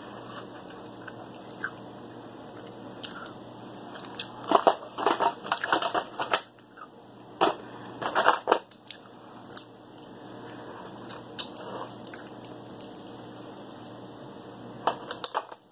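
King crab leg shells cracking and crackling as they are broken apart and picked by hand, in several short clusters of sharp snaps.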